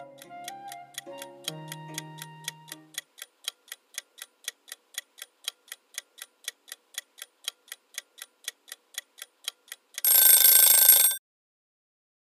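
Countdown-timer sound effect: a clock ticking at about four ticks a second as the time runs out. About ten seconds in, a loud alarm ring sounds for about a second and cuts off suddenly, marking time up. Background music fades out during the first few seconds.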